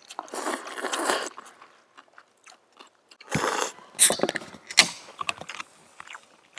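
Cold noodles being slurped and chewed, then a carbonated drink can cracked open about four seconds in, with a sharp click and a short fizz.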